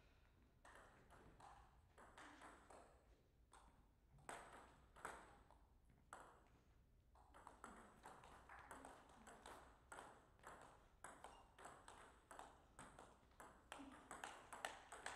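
Table tennis ball clicking off rackets and the table, faint: scattered single clicks in the first half, then a fast run of them in a rally through the second half.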